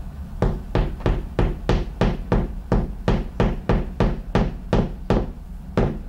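Claw hammer tapping a plastic wall anchor into drywall: a steady run of quick, even taps, about three a second.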